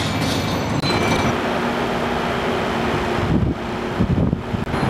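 Street traffic with the steady drone of a heavy diesel engine, likely the passing bus. About three seconds in, the drone gives way to wind buffeting the microphone.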